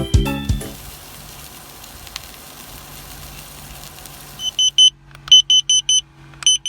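A steady low hum with a hiss, then, from about two-thirds of the way through, a series of short, loud, high-pitched electronic beeps in quick groups of two to four.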